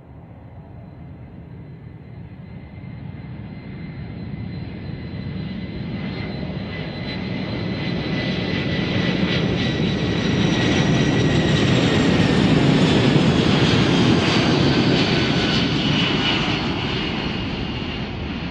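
Boeing 747-200F's four jet engines as the freighter passes, a rising roar that peaks about two-thirds of the way through and then begins to fade. A high engine whine slowly falls in pitch as it goes by.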